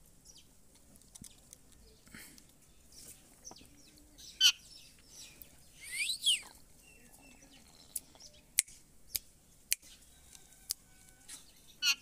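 Indian ringneck parakeet giving a few short shrill squawks, loudest about four and six seconds in, then a string of sharp single chirps spaced about half a second to a second apart.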